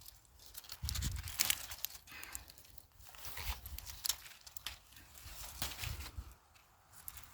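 Cowpea plants being handled and their pods picked by hand: leaves and stems rustle with irregular sharp crackles and snaps, and there are a few dull low thumps.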